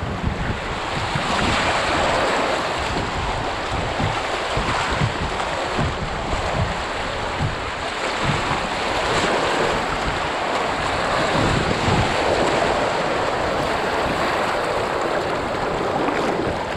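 Whitewater of a small river rapid rushing and splashing around an open canoe, with wind buffeting the microphone.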